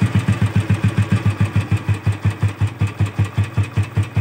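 Royal Enfield Bullet 350's single-cylinder four-stroke engine idling with a steady, even thump, about seven to eight firing beats a second.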